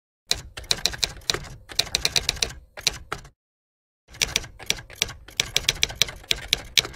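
Typewriter keys striking in quick runs of sharp clicks, with a silent pause of under a second about halfway through. The typing goes with text appearing letter by letter on screen.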